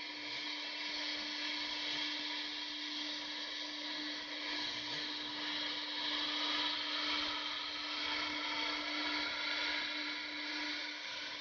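CNC router spindle running at about 18,000 RPM while its small end mill cuts a shallow outline into a white sheet. A steady mid-pitched tone sits under a constant hiss of cutting.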